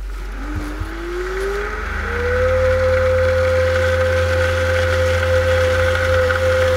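Grundfos SCALA2 variable-speed booster pump starting for the first time after being primed with water: its motor whine rises in pitch over about two seconds, then holds a steady pitch as it runs.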